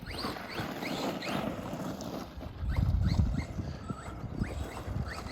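ARRMA Granite 3S BLX RC monster truck's brushless motor whining up in short rising bursts as the throttle is blipped, over rumbling and knocking from the truck crossing rough ground, loudest about three seconds in.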